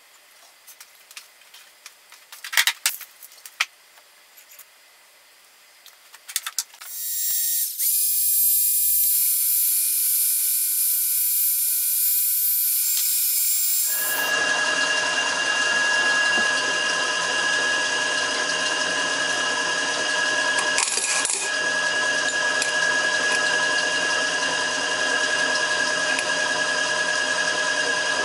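Faint clicks of steel bearing parts being handled, then a hot-air gun switched on about seven seconds in and running steadily with a fan-motor whine, heating the lathe spindle bearings so they slide on by hand. Its tone changes about halfway through.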